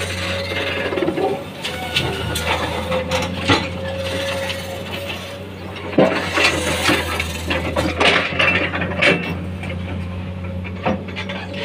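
Komatsu crawler excavator's diesel engine running steadily while its steel bucket digs into stony earth, with scattered clinks and knocks of rock against steel, the loudest about six seconds in.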